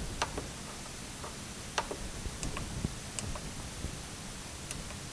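Light, irregular clicks, about ten of them, from buttons being pressed on a Radiomaster TX16S radio transmitter, over a faint steady background hiss.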